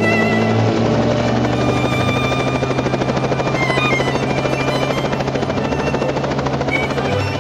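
Robinson R44 helicopter running on the ground, its piston engine and main rotor making a steady, rapid pulsing beat with a low steady drone.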